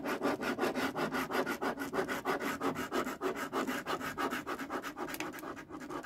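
A pen scribbling rapidly back and forth on a paper chart, crossing out a row. It makes a fast, rhythmic scratching, several strokes a second.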